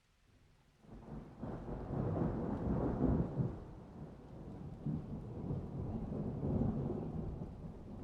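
A peal of thunder: a low rumble breaks in about a second in, swells to its loudest over the next couple of seconds, then keeps rolling more softly, with rain falling beneath it.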